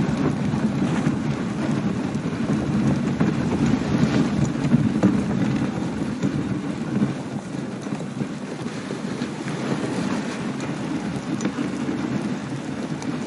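Husky-drawn dog sled gliding over packed snow: a steady rushing rumble from the runners, with small scattered crackles.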